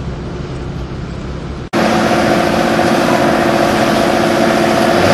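Boat diesel engine running steadily at idle, at first quieter; about a second and a half in the sound cuts suddenly to a louder, closer steady engine hum.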